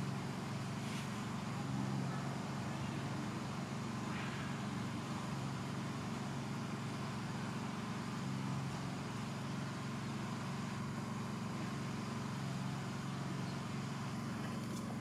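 A steady low hum of a running motor, holding an even pitch, with a couple of faint ticks.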